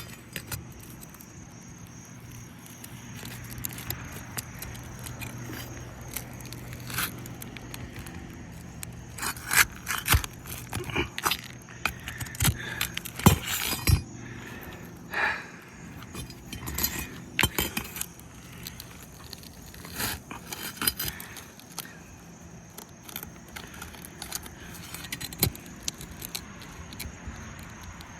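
Asphalt roofing shingle being pried and lifted by hand and tool: irregular scraping, clicks and crackles as the sealant bond is broken and the tool works against the shingles. A faint steady low hum sits underneath for most of it.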